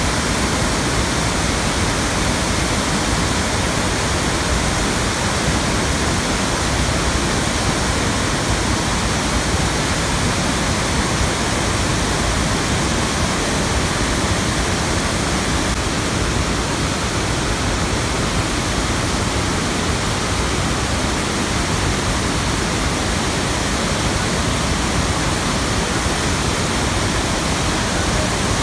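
Floodwater pouring down a concrete gravity-dam spillway and churning into the river below: a steady, unbroken rush of water.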